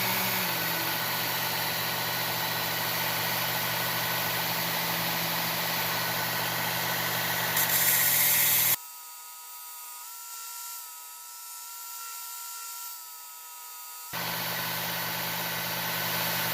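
Work Sharp Ken Onion belt knife sharpener running with a steady motor hum as a blade is ground on the belt, the grinding getting louder and harsher just before eight seconds in. It then drops away abruptly to a faint thin tone for about five seconds before the running sound returns.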